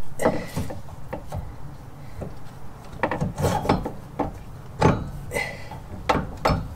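A new front CV axle shaft knocking and scraping against the suspension parts as it is fed up into the hub. There are several separate clunks, and twice a short metallic ring.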